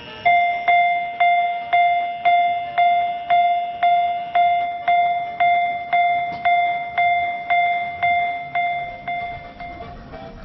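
Level-crossing warning bell on a miniature park railway, ringing a steady run of clear, fading dings at about two a second; it starts just after the beginning and stops near the end. It is the crossing's alarm for an approaching ride-on steam train.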